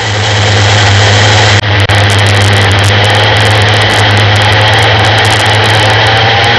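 250cc go-kart engine running hard at steady revs, heard on board with a loud, even drone and a rushing noise over it.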